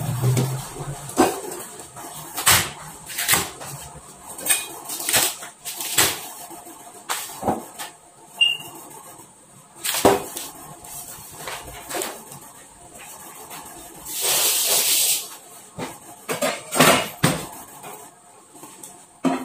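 Cleaver chopping vegetables on a plastic cutting board, sharp irregular knocks about one or two a second, with a brief hiss about three-quarters of the way through.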